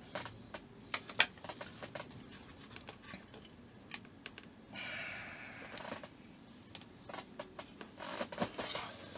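Small plastic model parts and screws being handled and fitted: scattered light clicks and taps, with a brief scraping noise about five seconds in and a busier run of clicks near the end.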